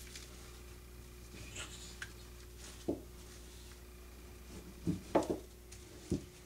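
Jute twine and broom bristles rubbing and scratching as the twine is wrapped around the bundle and pulled tight, with a few short knocks from handling the broom, the loudest about five seconds in.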